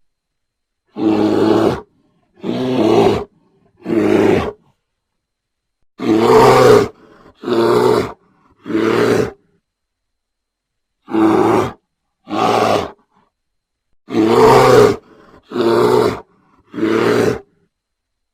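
Bear roar sound effect: about eleven short, loud roars, each under a second, coming in groups of two or three with dead silence between them.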